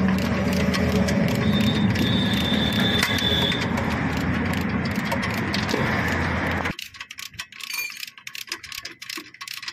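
Ratchet wrench clicking as the bolts holding the front shock absorber to the steering knuckle are tightened, over a steady low workshop hum. About two-thirds of the way through the sound drops away sharply, leaving fainter scattered clicks.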